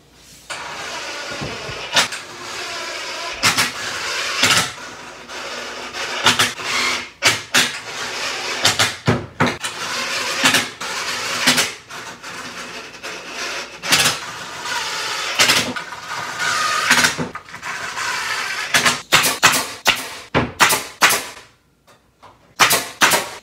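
Cordless drill running in repeated bursts against a plywood drawer box, with sharp clicks through it. Near the end a pneumatic brad nailer fires a quick string of shots.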